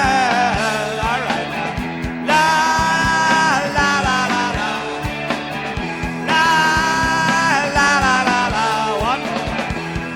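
Live rock band playing an instrumental passage: a steady drum beat under a lead line of held notes that bend and slide.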